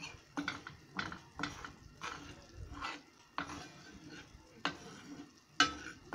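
A spoon scraping and stirring rice flour as it dry-toasts in a hot, dry frying pan: a string of short, irregular scrapes against the pan, the loudest about five and a half seconds in.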